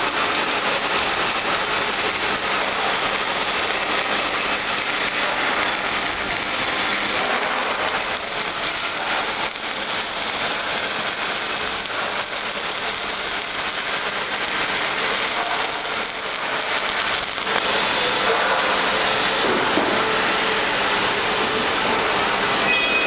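Robotic arc welding: the welding arc crackling and frying steadily, with a couple of brief dips.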